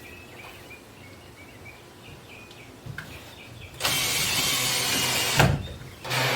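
Cordless drill driving a screw to join two Coosa composite panels, a burst of about a second and a half ending in a knock, followed by a shorter burst near the end. Faint bird chirps sound before the drilling.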